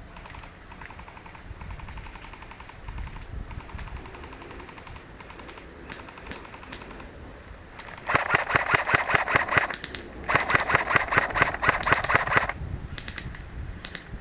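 Airsoft guns firing in rapid full-auto bursts: fainter bursts at first, then two long, loud bursts about eight and ten seconds in, and a few short ones near the end.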